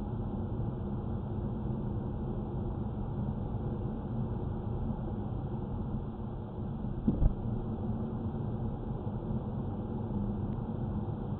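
A Volvo car's steady low rumble, with a sharp double knock about seven seconds in: the knocking noise the owner is complaining about.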